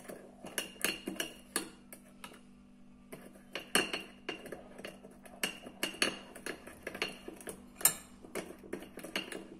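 Metal spoon stirring a wet paste in a small dish, clinking and scraping against the sides in quick, irregular strokes, with a short lull about two to three seconds in.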